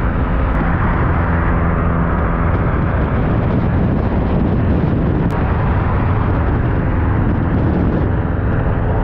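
Subaru Impreza's flat-four boxer engine running steadily at cruising speed, a constant drone mixed with road noise.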